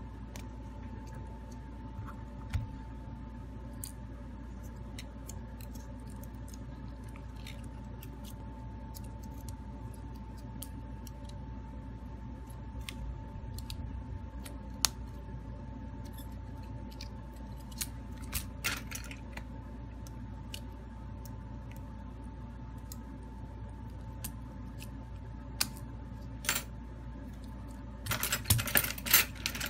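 Scattered light clicks and taps of a smartphone's parts being handled and taken apart, with a quick flurry of metallic clicking near the end. A steady hum with a faint high whine runs underneath.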